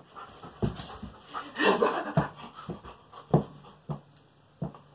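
Golden retriever panting after rough play, short breaths coming a little under twice a second. About one and a half seconds in there is a louder rustling scuffle.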